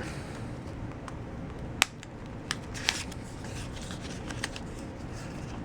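Cards and papers being handled and pulled from a wallet: light rustling with scattered small clicks, the sharpest a little under two seconds in.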